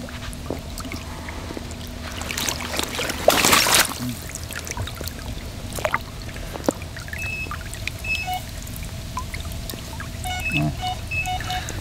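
Water splashing and pouring off a large common carp as it is lifted out of the water, loudest about three seconds in, followed by light dripping and trickling.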